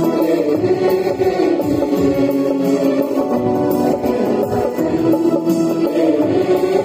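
A mixed choir of women and men singing together into microphones, with harmonium accompaniment holding sustained tones underneath.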